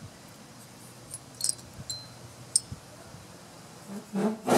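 A few light, high clicks of the blower engine's aluminium cylinder and piston being handled, over faint background, followed near the end by a brief louder sound.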